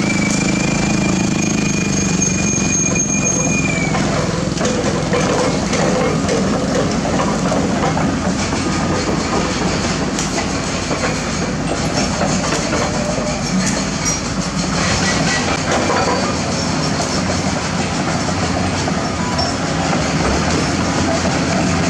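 Doosan DX200LCA crawler excavator travelling on an asphalt road: steel tracks clanking and squealing over the diesel engine.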